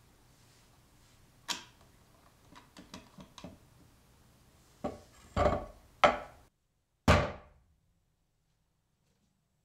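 Small clicks and knocks of a plastic oil bottle and a saucer being handled on a wooden table, then three heavier knocks. After a cut, one sharp strike of an axe head biting into a wooden block, dying away within about half a second.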